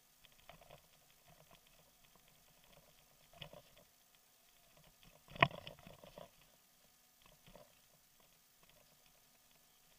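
A bicycle rolling over a bumpy dirt road, heard faintly as scattered small clicks and rattles of the bike and its handlebar-mounted camera, with one sharp knock about five and a half seconds in.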